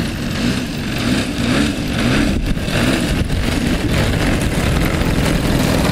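DLE 55 single-cylinder two-stroke petrol engine of a large radio-controlled aerobatic model plane idling steadily on the ground.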